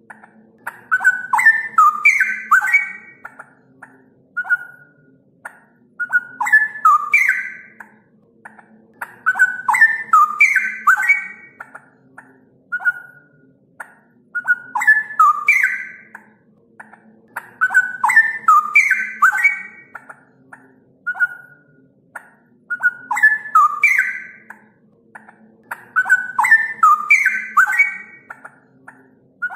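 Straw-headed bulbul (cucak rowo) singing: rich, bubbling whistled phrases of quick rising and falling notes, repeated about every four seconds, with short single notes in between.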